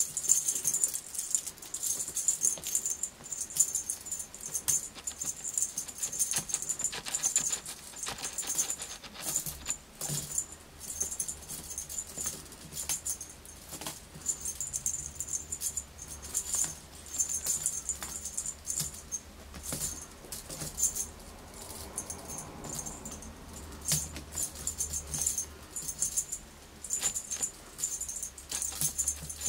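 A kitten's toy rattling and jingling in irregular bursts as the kitten bats at it and pounces.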